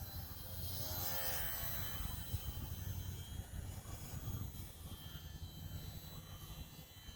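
Wind buffeting the microphone in gusts, with the high whine of a small electric RC airplane's motor rising briefly about a second in and then fading as the plane flies off.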